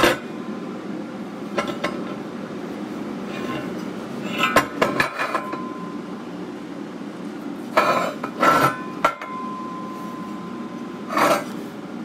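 Welded steel burner parts being handled on a steel workbench: a series of scattered metallic clanks and clinks, a couple of them ringing on briefly, over a steady low background hum.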